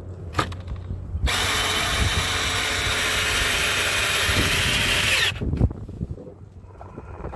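Cordless drill driving a long screw into a pressure-treated 2x8 board, running steadily for about four seconds and then stopping. A few short knocks come before and after it.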